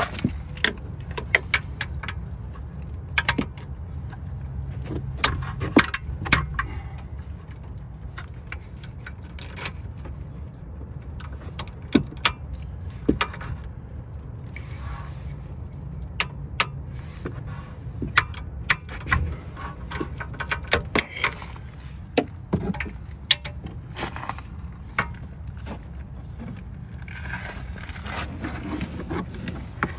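Ratchet and socket being worked on a caliper bridge bolt that is very tight and won't break loose: scattered sharp clicks and clinks, some in short runs, over a steady low rumble.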